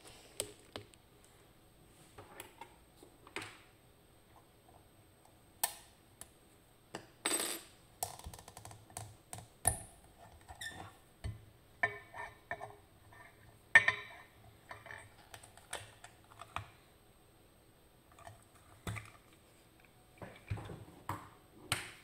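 Irregular metal clicks, clinks and knocks of handling: a brass lock cylinder being worked out of a metal vise clamp and set down on a marble board. The loudest knock comes about two-thirds of the way in.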